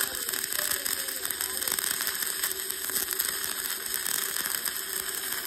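Electric welding arc crackling and sizzling steadily as a bead is run on steel square tubing, with a faint steady hum under it.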